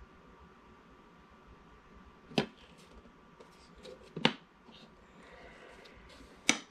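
Three sharp plastic clicks and knocks, with fainter clicks between them: the parts of a cordless vacuum's dust cup and HEPA filter being handled and snapped together.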